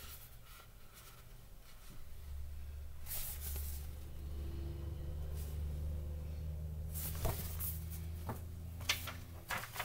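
A picture book being handled and its paper pages turned: two brief rustles about three and seven seconds in, then a few light clicks and taps near the end, over a low steady hum.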